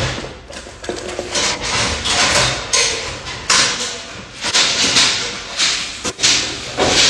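Dogs eating dry kibble from stainless steel bowls: the kibble and their muzzles clatter against the metal in repeated short bursts, about one a second.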